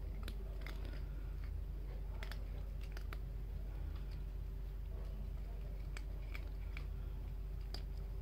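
Cats crunching dry food: a string of short, sharp crunches at uneven intervals, sometimes two or three close together, over a steady low hum.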